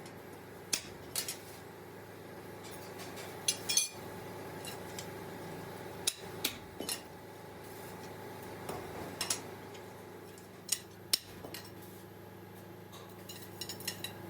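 Scattered metallic clinks and knocks of hand tools and metal parts being handled, a few at a time with pauses between, over a low steady workshop hum.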